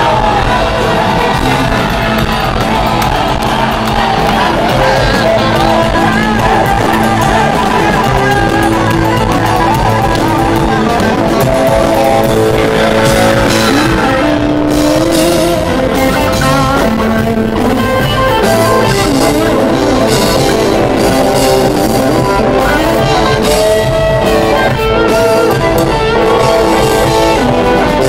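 Live rock band playing loudly, electric guitars and bass guitar over a full band.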